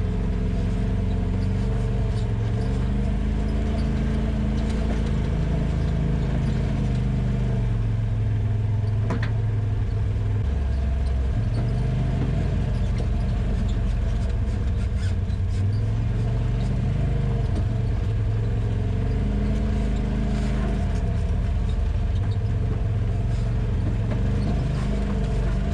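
Polaris RZR side-by-side engine running while driving a trail, its pitch rising and falling gently with the throttle, with a few sharp knocks and rattles.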